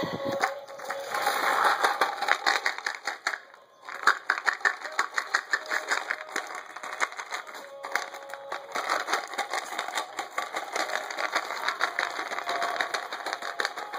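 Puppies playing around an empty plastic water bottle: a busy run of crackling and clicking, broken by a short lull about four seconds in and resuming with a sharp click.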